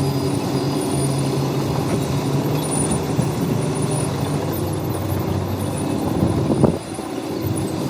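Heavy diesel engine of construction machinery running steadily, with a brief louder rise near the end before the level drops for a moment.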